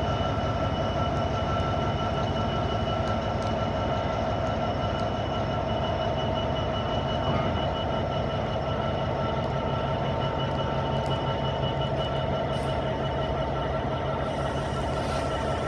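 A train at the station, running with a steady low rumble and a constant whine of several held tones.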